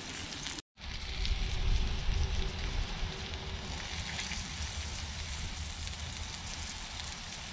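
Potatoes and meat frying in a cast-iron skillet over a small twig fire: a steady sizzle with the fire crackling. The sound drops out for a split second under a second in.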